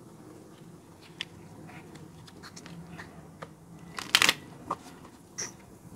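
Paper tarot or oracle cards being handled and shuffled: scattered light card clicks and rustles, with a louder flurry of card noise about four seconds in.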